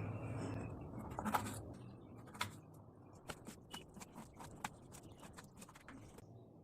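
Light, sharp clicks and taps, a few at first and then several a second, stopping about six seconds in.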